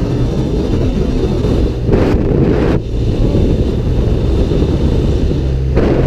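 Motorcycle engine running at road speed under heavy wind rush on the microphone. The rushing grows louder for about a second, two seconds in, then dips briefly just before three seconds.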